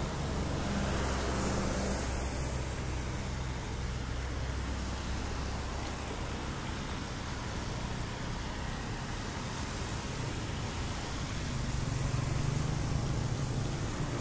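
Road traffic on a wet street: cars and motor scooters passing with a steady hiss, the engine rumble swelling at the start and again near the end.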